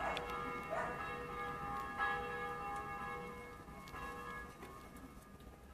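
Small metal bell on a hamster cage toy ringing, jostled three times in the first two seconds, each ring dying away, then fading out.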